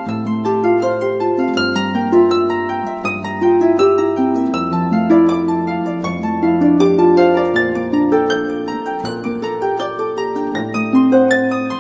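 Calm plucked-string instrumental music, harp-like: a steady flow of picked notes over low bass notes that change about every second and a half.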